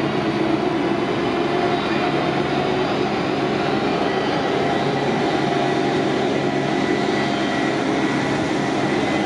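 SBF Visa Break Dance flat ride running, its turntables and cars spinning. It makes a steady mechanical hum with several constant tones over a rushing noise.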